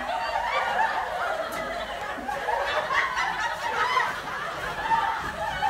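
Sitcom laugh track: many people laughing together, continuous and thin-sounding, with little low end.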